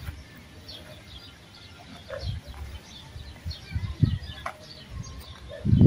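Small birds chirping in short, scattered high calls, with a few low thumps, the loudest near the end.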